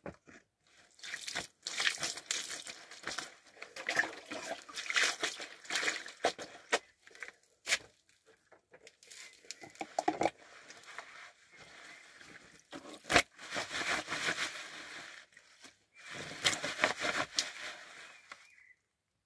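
Wet clothes being scrubbed and rubbed by hand, in repeated bouts of scrubbing noise with brief pauses and a few sharp knocks, the loudest about 13 seconds in.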